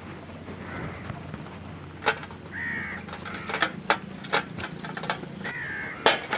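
A bird calls three times, spaced a couple of seconds apart. Several sharp metallic clinks come from steel utensils and a murukku press being handled, the loudest about two seconds in and near the end.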